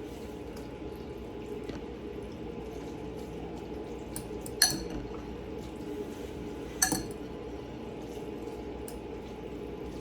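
Ice machine running while it makes a batch of ice, a steady hum with the sound of water moving. Two sharp clinks ring out, about five and seven seconds in.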